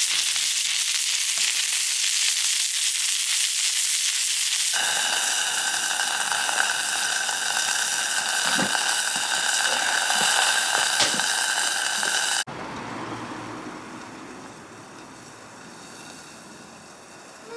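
Food sizzling as it fries over a campfire, a steady hiss with a few soft pops. The sound changes abruptly twice, and it is quieter over the last five seconds.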